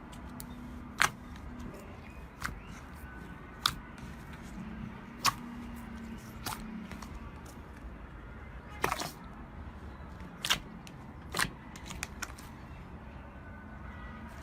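Slime being poked and squeezed by hand, giving a series of sharp pops and clicks as air pockets burst, spaced about one to two seconds apart over a low steady hum.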